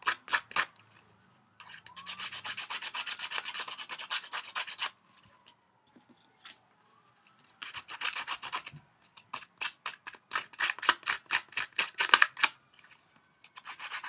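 Handheld paper-distressing tool scraping and shredding the edges of scrapbook paper in quick, repeated strokes. It comes in several runs with short pauses between them.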